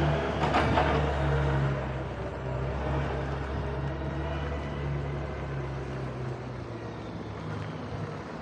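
Street traffic and ride noise from an electric kick scooter rolling over paving: a steady low vehicle hum under a noisy haze, easing off after about two seconds.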